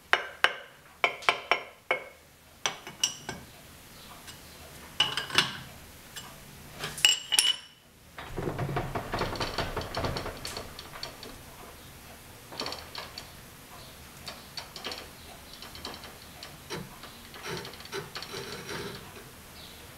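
Metallic clinks and knocks of a chuck key and steel jaws on a large four-jaw lathe chuck as a cast iron piece is clamped. About eight seconds in, this gives way to a rattling mechanical stretch from the lathe, with scattered clicks.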